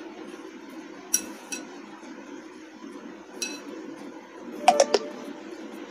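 A yellow plastic modak mould clicks and clinks against a glass mixing bowl as it is handled, a few scattered taps and then a louder quick cluster near the end, over a steady low hum.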